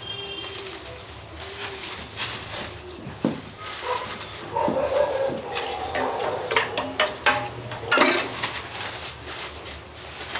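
Thin plastic carry bags rustling, and a steel spoon clinking and scraping against steel pots and trays as food is packed. The loudest clatter comes about eight seconds in.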